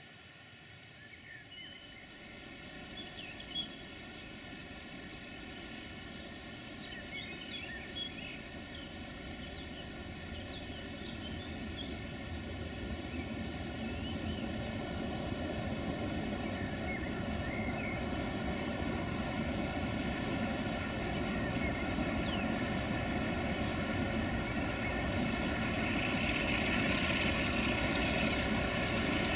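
Electroputere LDE2100 (060-DA) diesel-electric locomotive hauling a freight train, approaching: a low rumble that grows steadily louder throughout. Faint bird chirps sound in the first half.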